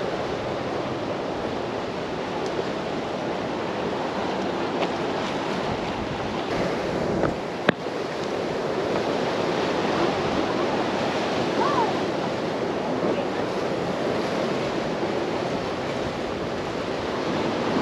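Sea surf washing against shore rocks, a steady rushing noise, with a single sharp click about eight seconds in.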